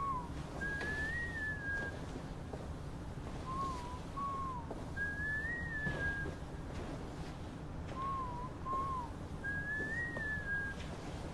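A person whistling a short tune through pursed lips: two brief notes, then a longer, higher note that rises and falls. The phrase repeats about every four seconds, three times over.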